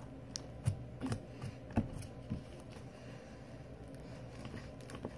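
Homemade slime being squeezed and pressed in the hands, giving soft sticky clicks and pops, about half a dozen in the first couple of seconds, then only a few faint ones.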